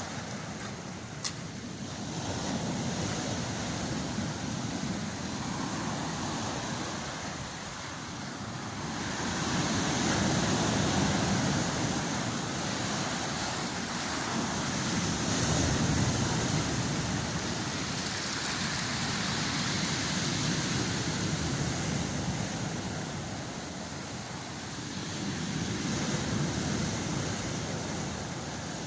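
Heavy storm surf on the Black Sea, waves breaking and washing sand and pebbles along the shore, the rush swelling and fading every five seconds or so. A single click about a second in.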